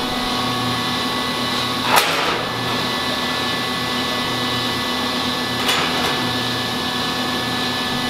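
Steady mechanical hum of dairy milk-house equipment running after milking, with two sharp metallic knocks from the stainless steel bulk tank lid being handled, about two seconds in and near six seconds.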